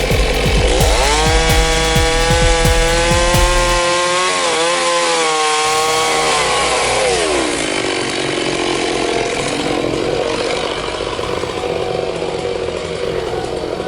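Large chainsaw running at high revs as it cuts into a big tree trunk. Its note holds steady, wavers about four seconds in, then falls away about seven seconds in, and the saw runs on at lower revs.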